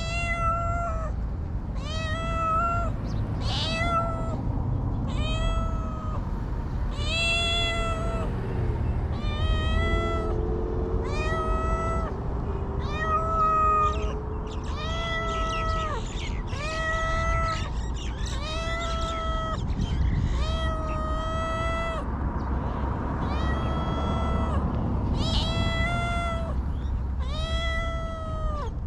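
A stray cat meowing over and over at an even pace, about one meow every second and a half, each call much the same pitch and length, over a steady low rumble.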